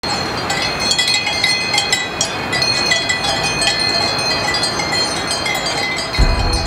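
Many small metal bells clinking and ringing irregularly over a steady hiss of ambient noise. About six seconds in, music enters with a low sustained note.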